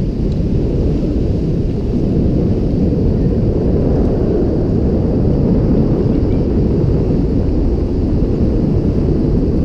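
Wind rushing over an action camera's microphone in flight under a tandem paraglider: a loud, steady low rumble.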